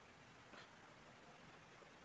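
Near silence: room tone, with one faint soft sound about half a second in.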